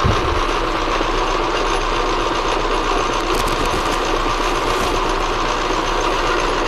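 Atlas metal lathe running at a steady speed, its spindle turning a drive plate with a cast aluminum engine frame clamped in angle clamps, an out-of-balance setup. The sound is a steady mechanical running sound that does not change.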